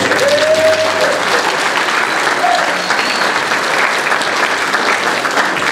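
Congregation applauding, a steady, dense clapping, right after the music stops.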